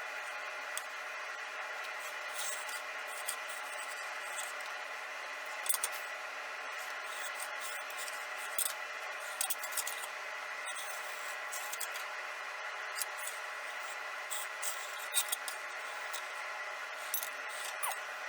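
Grinder abrading the steel sword blade while the fullers are ground in: a steady scraping hiss with a constant high tone and scattered scratchy ticks.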